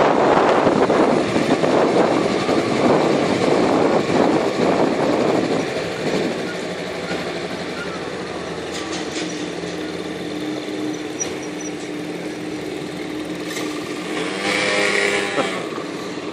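Motor-scooter ride: wind rushing over the microphone over the scooters' engines for the first five seconds or so. Then, as the ride slows, a quieter, steady engine hum, with a short rise and fall in pitch near the end.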